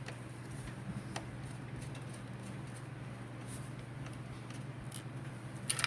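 Scattered faint clicks and ticks of a screwdriver tightening motherboard screws in a PC case, with a short run of louder clicks near the end, over a steady low hum.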